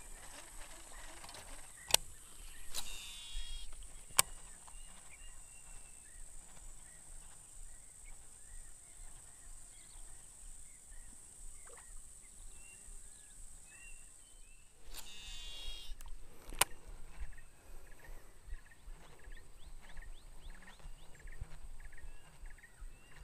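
Swamp ambience of a steady high insect buzz and small chirping calls, broken twice by a Shimano Exsence DC baitcasting reel whirring with its brake's wavering whine as line pays out on a cast, each time followed about a second later by a sharp click.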